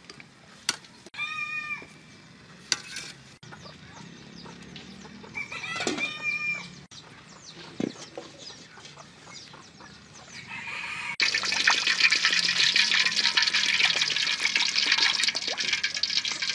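Chickens call twice in the background, then about eleven seconds in a loud crackling sizzle starts abruptly: chicken feet frying in hot oil in an iron wok.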